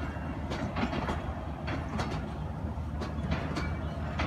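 Pakistan Railways Tezgam passenger coaches rolling past over steady low rumble, their wheels clicking sharply over the rail joints two or three times a second in an uneven clickety-clack.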